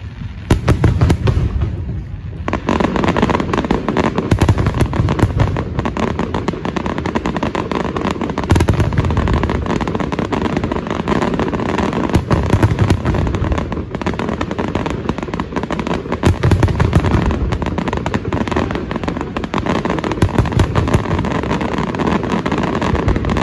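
Aerial fireworks display: a dense, continuous barrage of sharp pops and crackles from bursting shells, with heavy low booms about every four seconds.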